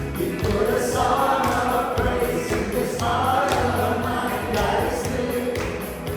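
Worship band and singers performing a contemporary praise song, voices singing together over the band.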